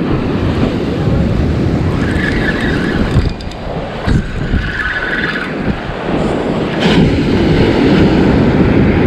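Wind buffeting the microphone over breaking surf, loud and rumbling, while a spinning reel is cranked to bring in the line after a bite.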